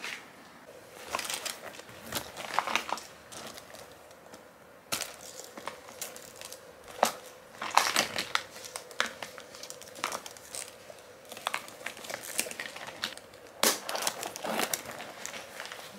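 Handbags being handled as their contents are moved from one bag into a small silver metallic bag: irregular rustling and crinkling of the bag material, with sharp clicks and clinks from its metal chain strap and fittings.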